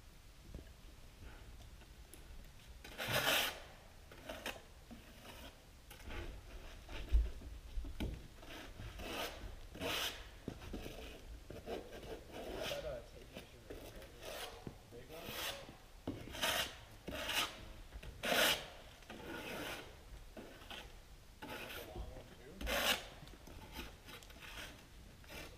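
Irregular rasping, scraping strokes, some short and some about half a second long, with a dull thump about seven seconds in.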